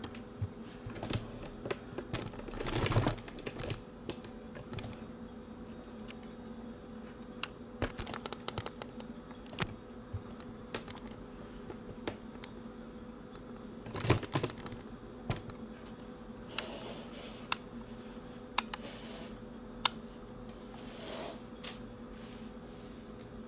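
Light clicks and taps of small plastic parts and screws being handled while a drone is taken apart, with a couple of louder rustles about 3 and 14 seconds in, over a steady low hum.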